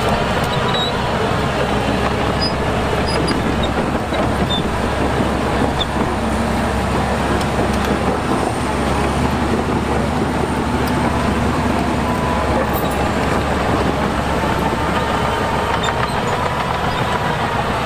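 Heavy diesel engine of earthmoving machinery running steadily under load.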